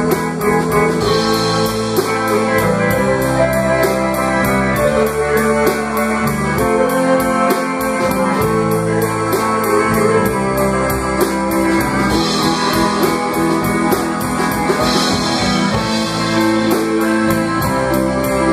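Live band playing an instrumental blues-rock passage, with electric keyboard and guitar.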